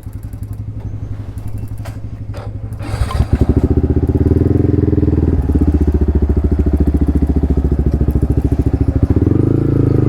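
Yamaha MT-15's single-cylinder engine through a full-system Akrapovič exhaust, idling with an even beat, then getting much louder about three seconds in as it is given throttle and pulls away, staying loud with a steady pulse for the rest.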